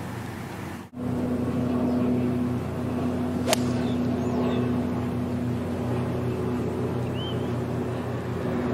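A single crisp click of an iron striking a golf ball about three and a half seconds in, over a steady low mechanical hum. A bird chirps briefly near the end.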